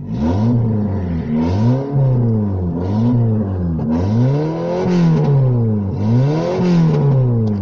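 Opel Vectra A's C20NE 2.0-litre four-cylinder engine revved up and down repeatedly, its pitch rising and falling about five times.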